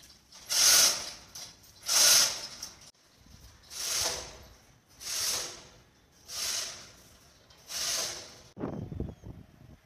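Manual chain block hoist worked by hand: the hand chain is pulled through in regular strokes, each a hissing rattle of chain about every second and a quarter, six in all. Near the end this gives way to a lower, irregular clatter of chain.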